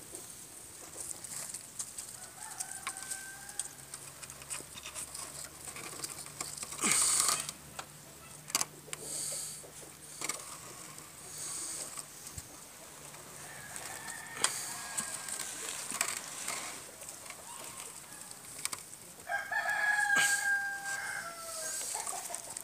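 A rooster crowing three times: faint about three seconds in, again around fourteen seconds, and loudest near the end, each crow a drawn-out call that falls away at its close. Brief rustling noises come in between.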